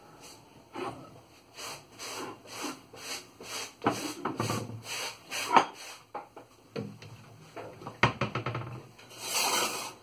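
Off-screen kitchen handling sounds: irregular rubbing and shuffling with a few sharp knocks, like cups being fetched from a cupboard, and a denser rustle near the end.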